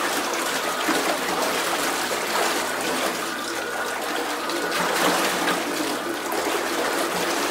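Steady rushing and churning of bathtub water driven by a 3D-printed water-jet thruster running submerged.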